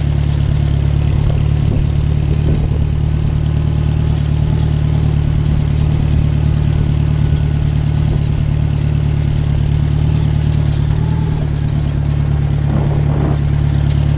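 Small farm tractor's engine running steadily at an even speed.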